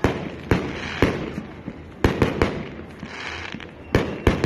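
Aerial firework shells bursting overhead: a string of about eight sharp bangs, some coming in quick clusters of two or three, each trailing off briefly.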